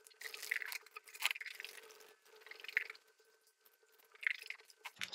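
Faint scraping and light metal clicks of a screwdriver turning a screw to fasten the float bowl onto an SU HD8 carburettor body, in four short bursts.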